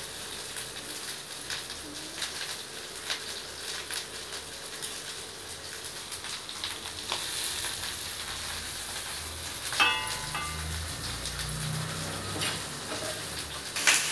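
Hot oil sizzling and crackling as pirandai (adamant creeper) stalks and curry leaves fry in a kadai, with a short metallic ring about ten seconds in and louder crackling near the end.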